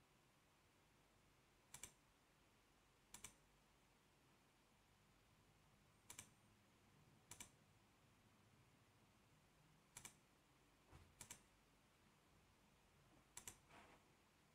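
Computer mouse clicking about eight times at uneven gaps of one to three seconds. Each click is a quick press-and-release pair of ticks, with near silence between them.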